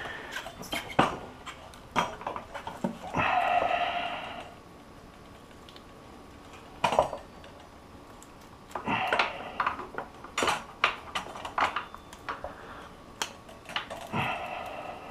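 Metal hand tools and motorcycle brake parts clinking and clattering during brake-pad work, with many sharp clicks and three louder metallic stretches of about a second each.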